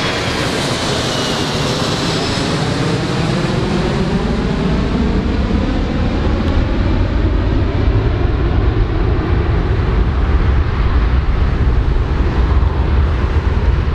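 Jet engines of a four-engine airliner climbing away: a steady roar with a high whine that falls in pitch over the first couple of seconds, and a deep rumble that grows louder toward the end.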